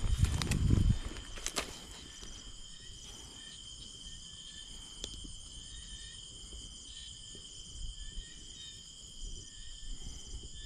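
A chorus of insects trilling steadily at several high pitches, some of the trills pulsing. In the first second and a half come louder low rustling thumps and a couple of sharp clicks.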